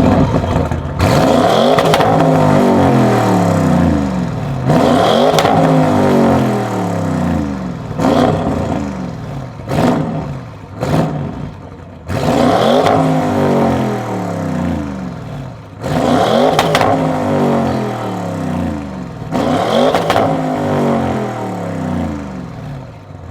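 Audi RS6 C8's twin-turbo V8, with catless downpipes and the particulate filter deleted, revved repeatedly: about five hard revs, each climbing sharply and falling back, with shorter blips in between. Sharp crackles and pops sound as the revs drop.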